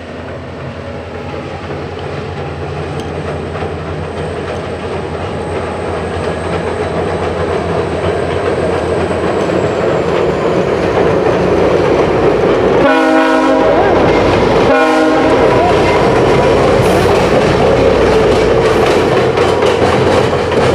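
VIA Rail passenger train led by an F40PH-2 diesel locomotive pulling away, its engine and wheels growing steadily louder. Two short horn blasts sound about two-thirds of the way through, followed by the cars clacking over the rail joints.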